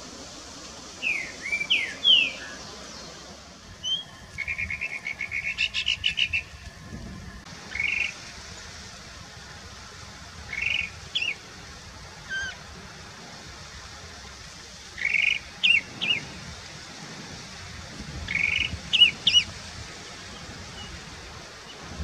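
Chalk-browed mockingbird (sabiá-do-campo) singing short phrases of sharp, whistled notes every few seconds. Before it, in the first seconds, another bird gives quick whistles and then a fast trill of repeated notes.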